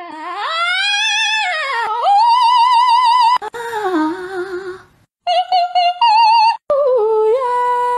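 Tabby cats meowing one after another: long drawn-out meows that rise and fall in pitch, some of them wavering, then a quick run of shorter meows and another long, steady meow near the end.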